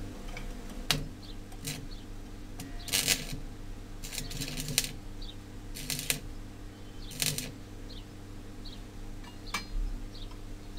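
Stick arc welder striking short arcs to tack small steel pieces: about seven brief crackling bursts, each under half a second, spaced roughly a second apart, over a steady low hum.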